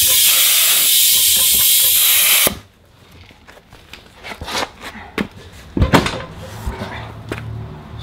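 Compressed air hissing loudly through an air chuck into a golf cart tire that has rolled off its bead, a strong blast meant to seat the bead, cutting off abruptly about two and a half seconds in. Scattered clicks and taps follow.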